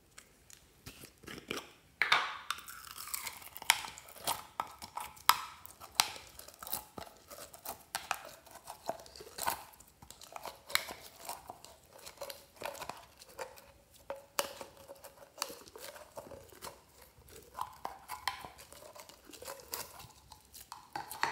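Clear red slime with small foam beads being pulled and scraped by hand out of a plastic jar: irregular sticky crackles, pops and clicks, starting about two seconds in.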